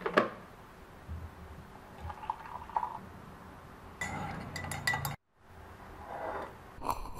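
Metal teaspoon stirring coffee in a ceramic mug, clinking against the inside: a few separate clinks, then a quicker run of clinking.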